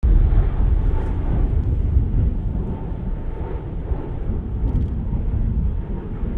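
Low rumble of a Blue Angels F/A-18 Super Hornet's jet engines as it flies over, with a faint steady whine on top. It grows a little quieter after the first couple of seconds.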